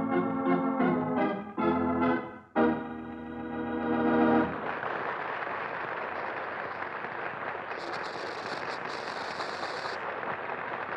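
An organ music cue plays a short run of notes, then stops about four and a half seconds in. It gives way to a steady, even wash of noise, with a brief extra hiss near the end.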